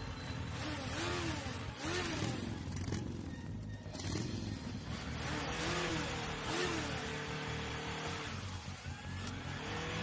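Cartoon motorcycle engine sound effect revving in repeated rising-and-falling swells, settling into a steadier held note near the middle and again at the end, over background music.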